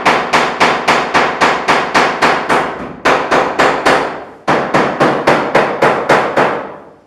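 Hammer striking the sheet-steel corner edge of an old refrigerator door, about four fast, even blows a second, denting and folding the edge inward. There are two brief breaks, and the hammering stops shortly before the end.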